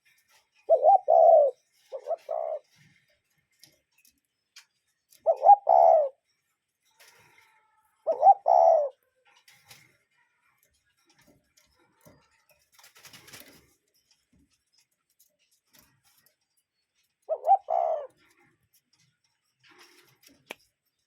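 Common cuckoo calling its two-note "cuckoo" about five times at irregular intervals, with a long pause in the middle.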